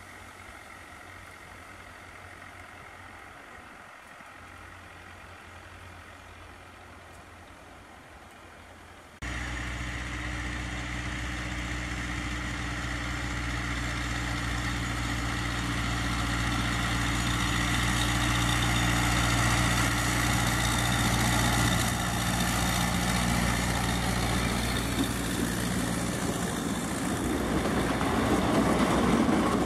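Narrow-gauge diesel locomotive running steadily as it approaches, a low engine hum that is faint at first, jumps louder about nine seconds in and keeps building. Near the end open passenger wagons roll past with a wheel-on-rail rattle.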